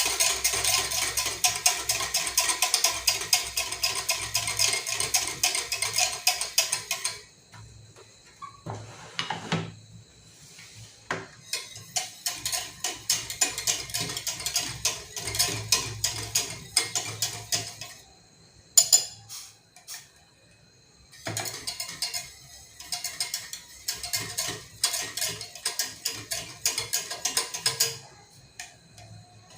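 A spoon stirring and scraping fast against a pot as a starch and frankincense-water mixture thickens on the heat. It is a rapid run of clicks in three long spells, with short quieter pauses between.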